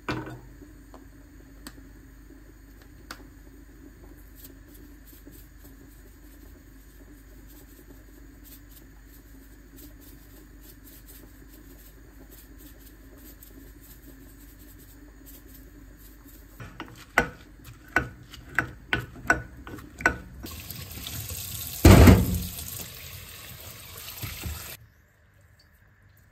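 A steady low hum, then a quick series of about eight sharp taps or clicks. Then a kitchen tap runs water into a sink for about four seconds, with a loud thud partway through, and cuts off suddenly.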